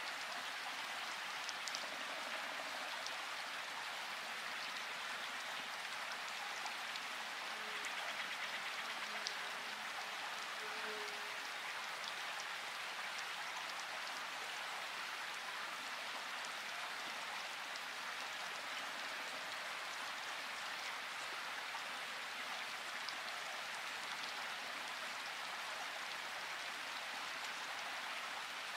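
Steady, even hissing noise, like light rain or running water, with a few faint short tones about eight to eleven seconds in.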